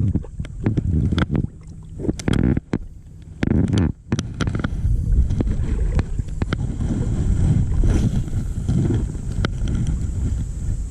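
Low rumbling wind and water noise on the microphone, with a run of sharp clicks and knocks in the first few seconds.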